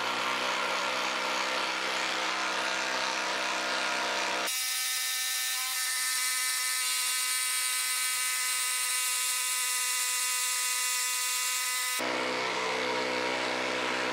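Hilti SID 2-A12 12-volt impact driver hammering steadily under load as it bores a hole into a wooden post with a 1-1/4 inch spade bit. The tone changes abruptly about four seconds in and again near the end.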